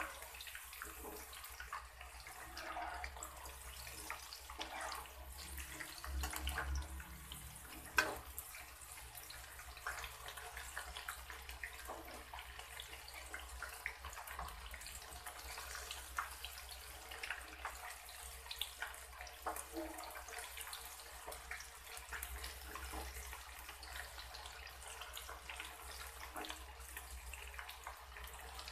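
Potato sticks deep-frying in hot oil in a wok: a steady sizzle full of small crackles and pops. It is broken by a few sharp clinks of a metal slotted spoon against the wok, the loudest about eight seconds in.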